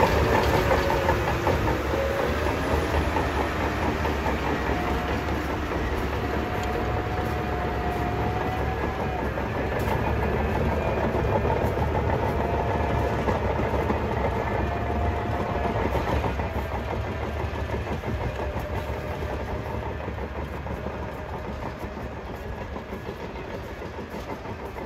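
Crawler bulldozer working close by: its diesel engine runs steadily under the clatter of its tracks, with a wavering squeal. The sound slowly fades over the last several seconds.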